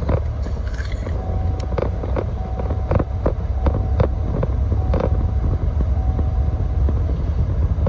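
Steady low rumble of a car driving, heard from inside the cabin, with a few scattered sharp clicks.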